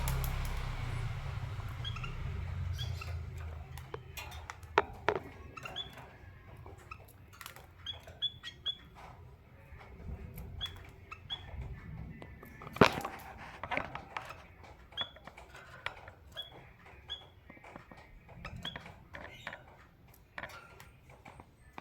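Caged finches (a canary and a munia) moving about the cage: scattered sharp taps and clicks of the birds hopping on perches and cage wire, the loudest about 13 s in, with short high chirps every second or two. A low rumble fills the first few seconds.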